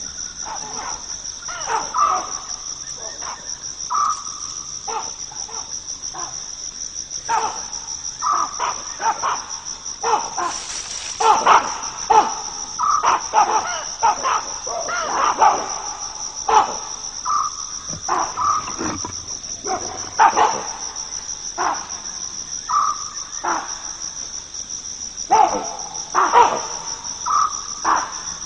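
Steady, high-pitched insect chorus, with short, irregular calls from a troop of baboons breaking in again and again: baboons alarmed by a hunting leopard.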